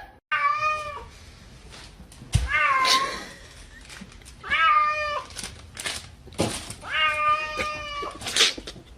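Domestic cat meowing four times, drawn-out meows a couple of seconds apart, the last one the longest.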